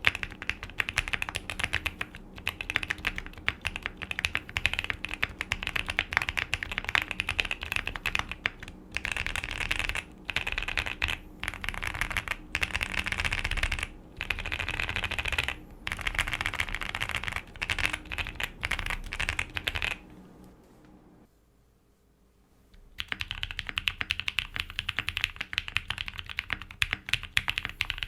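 Fast typing in bursts on a QK65 gasket-mounted mechanical keyboard with a POM plate and PBT keycaps, fitted with lubed Gazzew Boba U4T tactile switches. After a brief stop about two-thirds of the way through, the typing resumes on lubed and filmed AEboard Naevy switches.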